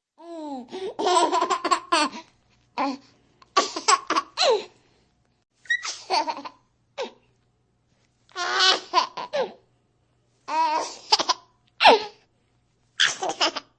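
Baby laughing in about seven short bouts of giggles, each a second or two long, separated by pauses of complete silence.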